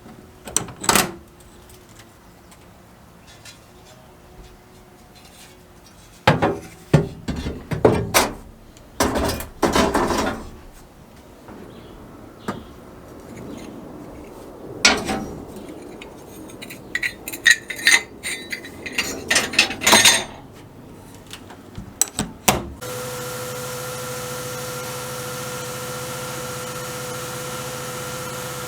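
Metal stove parts being handled and worked: irregular clanks, knocks and scraping. About 23 s in, a machine starts and runs steadily with a constant hum.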